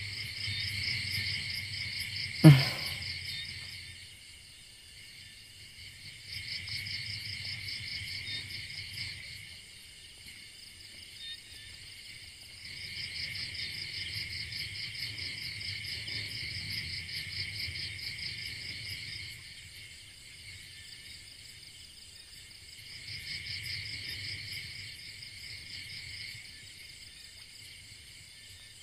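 Night insects, crickets, chirping in a fine rapid trill that swells for a few seconds at a time and then drops away. About two and a half seconds in comes a single sharp thump, the loudest sound.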